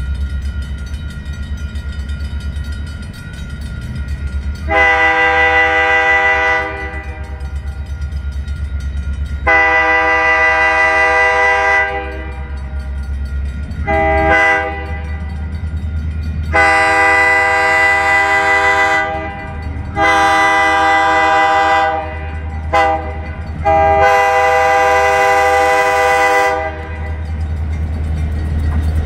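Diesel locomotive air horn sounding the grade-crossing signal as the train approaches the crossing: long, long, short, long blasts, then further long and short blasts, each a loud multi-note chord. A steady low rumble runs beneath.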